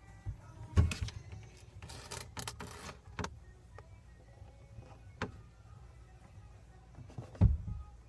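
Handling noise from a phone or tablet in a cramped hiding spot: a few dull knocks and bumps, the loudest about a second in and near the end, with a stretch of rustling in between. Faint television music plays underneath.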